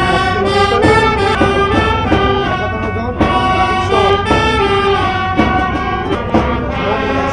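Naval brass band playing a tune, with a steady run of short notes.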